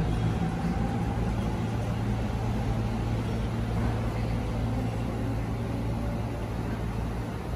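Steady low hum of an electric commuter train standing at the platform. In the first seconds another train pulls out on the next track, with a faint motor whine.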